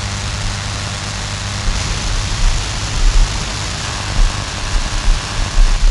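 Noise from an SDRplay RSP1a receiver tuned across the nearly empty medium-wave band: a steady hiss with irregular low thumps. It is interference of unknown origin.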